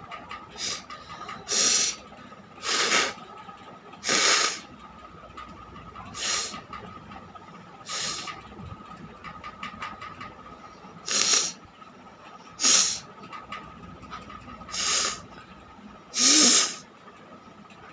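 A person blowing forcefully out through the nose, about ten sharp hissing blasts of air at uneven gaps of one to two seconds. The last blast ends in a short voiced snort.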